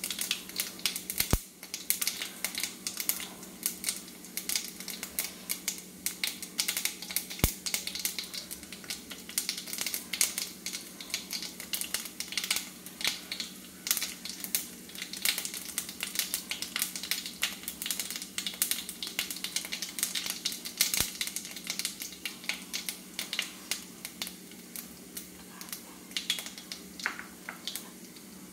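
Mustard seeds popping and crackling in hot coconut oil in an iron kadai, tempered with fennel seeds and dried red chillies: rapid, irregular sharp pops with a few louder cracks, thinning out near the end. A steady low hum runs underneath.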